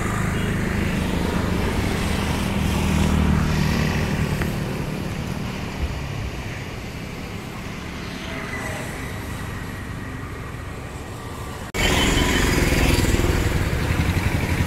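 A motor vehicle engine running as it passes, with a steady rushing noise under it. About twelve seconds in the sound cuts abruptly to a louder, rougher stretch of the same kind of noise.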